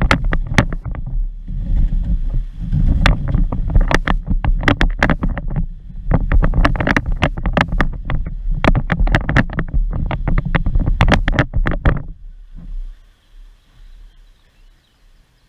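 Kayak in rough water: heavy rushing and buffeting with many sharp knocks and clatters, stopping suddenly about twelve seconds in.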